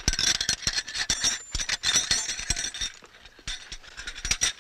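Metal clinking and rattling in quick, irregular clicks.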